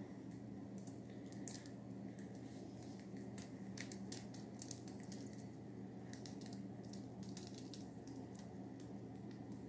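Soft, scattered crinkles and crackles of clear plastic sheeting pressed and shifted by hands tilting a wet acrylic-poured canvas, over a steady low hum.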